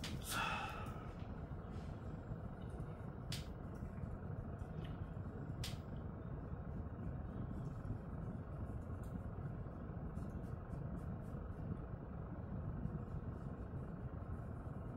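Steady low background hum, with a brief sound about half a second in and a few soft clicks.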